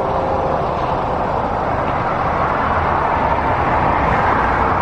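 Steady road and tyre noise of a car driving at highway speed, an even rush with no distinct events.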